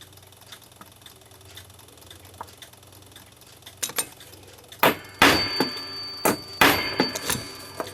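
Hammer striking a steel punch on a rivet in an antique clock movement, peening it tight so the part stays adjustable. A few light taps are followed, in the second half, by a run of sharp metallic strikes with a thin ringing tone between them.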